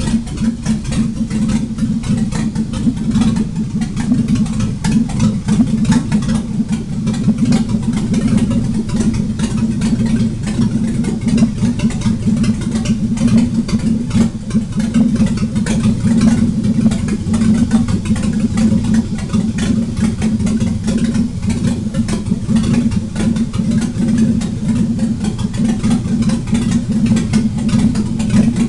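Chevrolet Vortec 4.3 V6 engine running with no exhaust system fitted, idling steadily and loudly without revving.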